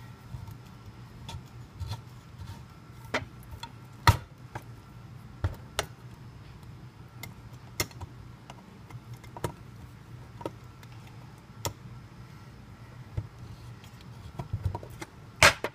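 NOSIVA smooth-edge (side-cutting) manual can opener working on the rim of a large steel can: irregular metallic clicks and ticks as its knob is turned and the opener is handled. There are two sharper clacks, one about four seconds in and one near the end.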